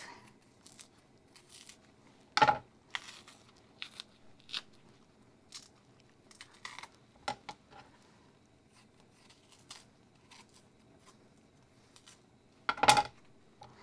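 Green plantain skin being pried and torn off with a knife and fingers: scattered small snaps, rips and scrapes, with two louder cracks or knocks, one about two and a half seconds in and one near the end.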